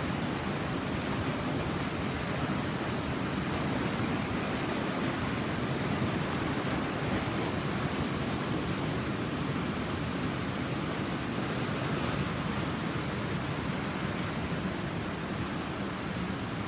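Fast-moving flash floodwater rushing, a steady unbroken noise with no distinct splashes or changes.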